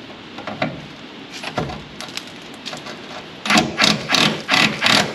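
Hand-tool work on the truck's rear bumper bolts: a few scattered clicks, then, about three and a half seconds in, a loud run of quick, evenly spaced mechanical clacks, about three or four a second.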